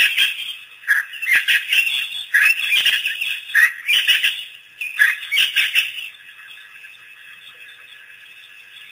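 African wild dogs twittering: a quick run of high-pitched chirping calls, several a second, that stops about six seconds in, leaving only a faint steady background.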